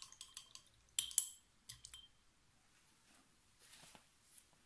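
Quick light clinks and taps of painting tools against the palette as oil colours are mixed: a cluster at the start, another about a second in, a couple more near two seconds, then a faint brushing sound around four seconds.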